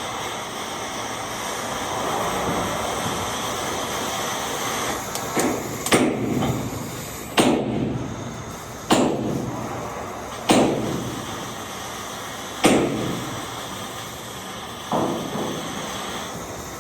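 Hammer striking metal about seven times, spaced a second or two apart, each blow ringing briefly, after a few seconds of steady hissing.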